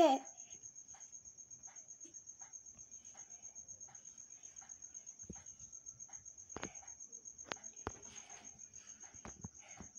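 A continuous high-pitched insect trill, pulsing rapidly and evenly, with soft scattered rustles and taps beneath it.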